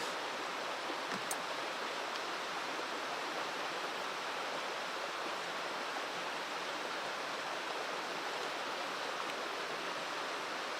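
Mountain stream rushing steadily, an even wash of flowing water.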